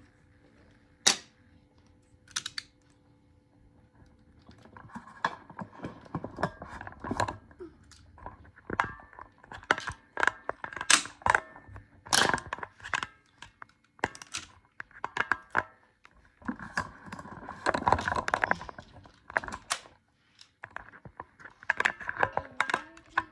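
Plastic magnetic building tiles clicking and clattering as they are picked up, handled and snapped together, in irregular bursts of sharp clicks that grow busier after a few seconds.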